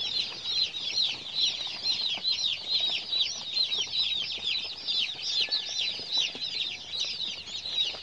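A brood of young chicks peeping continuously, many short high peeps that slide downward in pitch, several a second and overlapping.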